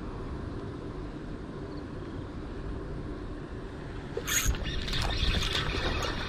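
Wind rumbling on the microphone, then about four seconds in a sudden sharp swish as a spinning rod is cast and line whips off the reel, followed by rustling and clicking handling noise from the rod and reel.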